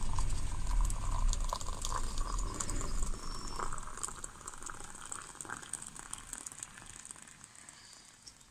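Hot water poured from a kettle into ceramic mugs, a splashing, gurgling stream, loudest in the first few seconds and fading toward the end.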